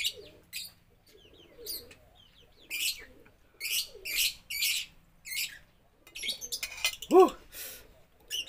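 Slurping and sipping of spicy water spinach broth from the rim of a bowl, a series of short wet slurps. Near the end comes one short meow that rises and falls, the loudest sound in the stretch.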